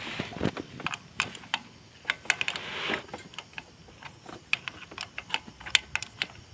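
Irregular sharp metallic clicks and taps from hand work on a motorcycle's clutch cable adjuster and lever, a few a second in uneven clusters, with two brief rustling swishes near the start and about three seconds in.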